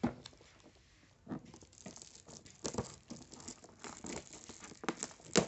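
Shiny foil gift wrap crinkling as fingers pick and scratch at the tape on a wrapped box, in irregular short crackles and taps that start about a second in, with a louder crackle near the end.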